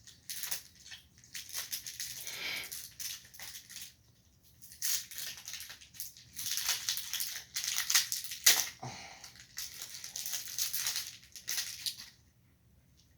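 Plastic packaging bag crinkling and tearing as it is handled and opened, in irregular bursts with a short lull about four seconds in.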